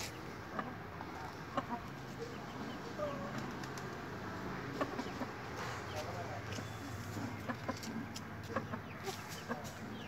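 Chickens clucking in their pens, in short, scattered calls, with light clicks and taps among them.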